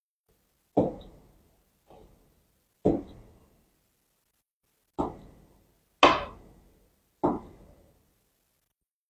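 Knife blade knocking down onto a cutting board as slices are cut from a salmon fillet: six separate knocks with short fading tails, unevenly spaced, the loudest about six seconds in.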